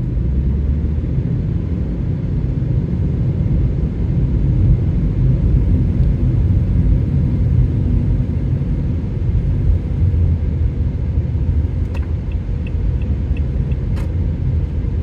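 Low, steady rumble of a car being driven, road and engine noise picked up by a dashcam inside the car. Near the end comes a short run of quick, faint high ticks and a couple of sharp clicks.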